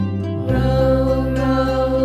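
Background music of sustained, held chords that change about half a second in.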